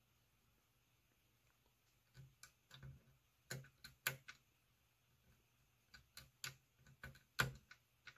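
Small plastic jumper shunts being pushed onto header pins on a circuit board: a string of faint, irregular sharp clicks and taps, starting about two seconds in, the loudest about four and seven and a half seconds in.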